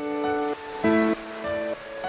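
Instrumental background music, with chords held for about half a second each before changing.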